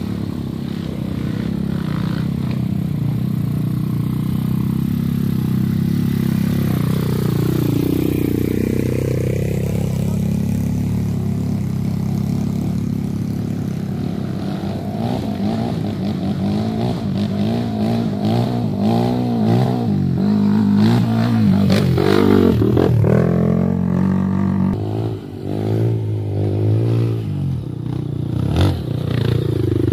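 Several trail dirt bikes' engines revving as they climb a muddy trail, the pitch rising and falling with the throttle and several engines overlapping in the second half. One bike passes close near the end.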